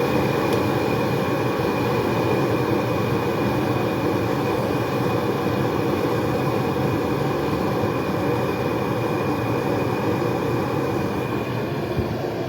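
Propane burner flame running with a steady rushing sound, turned down a little, under meat frying in a pot.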